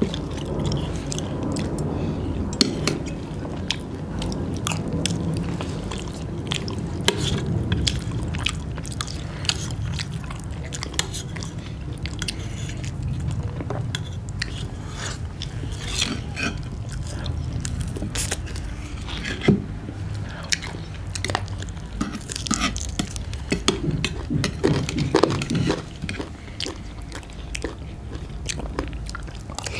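Close-miked chewing and mouth sounds of people eating soft food, with frequent short clicks and scrapes of a steel spoon against stainless-steel plates and bowls.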